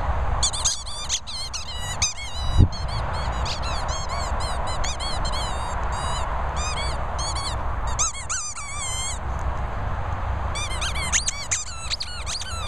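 Squeaky dog toy being chewed by a German Shepherd: quick runs of short, high squeaks, each rising then falling in pitch, in two bouts with a short break in the middle.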